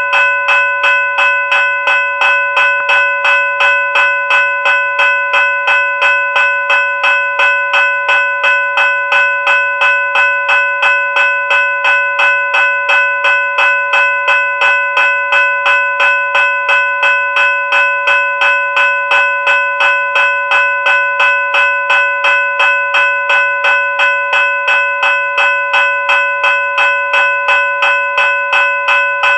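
General Signals Type 3 electronic bell ringing continuously: a bright, metallic, bell-like tone made of several steady pitches, struck over and over in a fast, even pulse.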